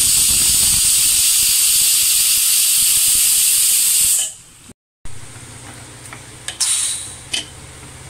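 Stovetop pressure cooker whistling: a loud, steady jet of steam hissing from the weighted valve for about four seconds, then stopping. This is the first whistle, the sign that the cooker is up to pressure and ready to come off the heat. A few light clicks follow near the end.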